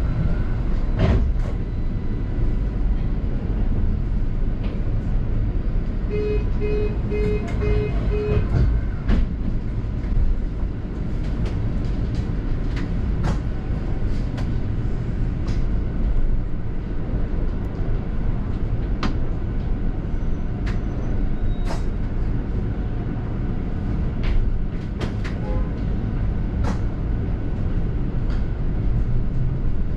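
Interior noise of a London double-decker bus on the move: steady engine and road rumble with scattered rattles and clicks. About six seconds in, five short evenly spaced beeps sound, and near the end the engine note rises.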